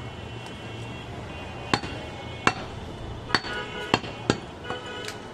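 Large curved butcher's knife chopping goat meat on a wooden log block: about six sharp strikes starting nearly two seconds in, some followed by a brief metallic ring from the blade.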